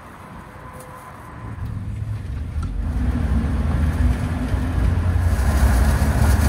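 Pickup truck driving along a street, heard from its open bed: a low road-and-wind rumble comes in about a second and a half in and grows louder, with a hiss joining it after about five seconds.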